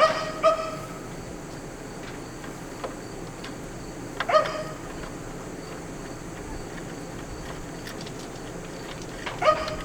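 Metal parts or tools clinking while the furnace is worked on. There are short, ringing clinks: two close together at the start, another about four seconds in, and one near the end, over a steady low hiss.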